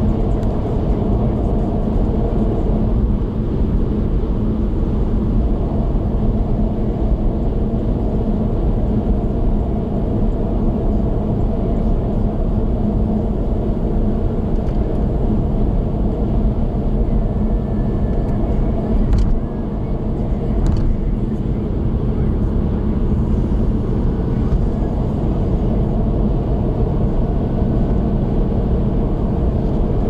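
Steady road and engine noise of a car cruising at highway speed, heard from inside the cabin, with a low hum. There are two short clicks a little past halfway.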